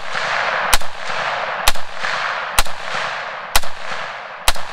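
Rifle shots from a PSA AR-10 in .308 fitted with a cheap angled 'dragon'-style muzzle brake: five shots about a second apart, incredibly loud, each followed by a long echo that fades before the next.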